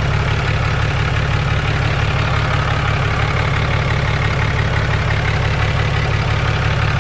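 2008 Dodge Ram 2500's 6.7 L Cummins inline-six turbodiesel idling steadily through its 4-inch turbo-back exhaust: an even low rumble with a fast, regular pulse.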